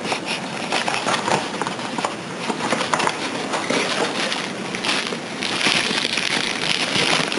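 Plastic packaging crinkling and rustling as a phone case is handled and unwrapped: a steady run of small crackles and clicks, busier in the second half.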